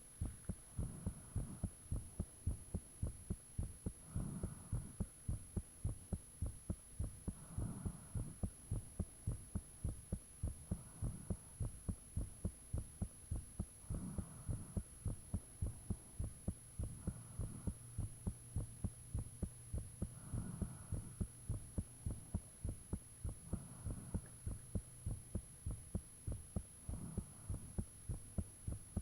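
A person's heartbeat recorded up close: a steady, regular run of low thumps, with a softer whooshing swell about every three seconds.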